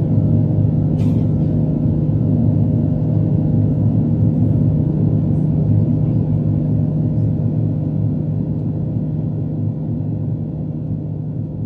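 Steady low drone of an Airbus A330's engines and airflow heard inside the passenger cabin during the climb after takeoff, slowly fading near the end.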